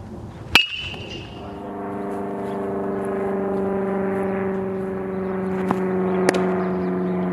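A metal baseball bat strikes a ball about half a second in with a sharp ping that rings briefly. A steady engine drone then sets in, and about six seconds in a pitched fastball pops into the catcher's mitt.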